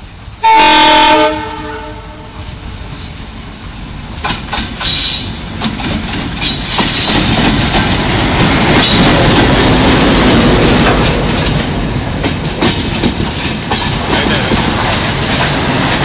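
Horn of a WDM-3D diesel-electric locomotive: one loud blast about half a second in, lasting under a second. The locomotive and its LHB coaches then come up and pass close by slowly, wheels clicking over the rail joints, the sound growing louder as the train draws alongside.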